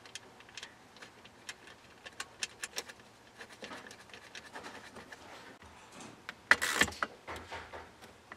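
Small irregular metallic clicks as a nut and washer are threaded onto a bolt by hand, then a louder short metallic rasping about six and a half seconds in as a socket ratchet goes onto the nut to tighten it.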